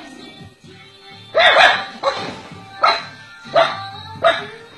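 Small dog barking repeatedly: five or six short, sharp barks, starting a little over a second in and coming about every two-thirds of a second.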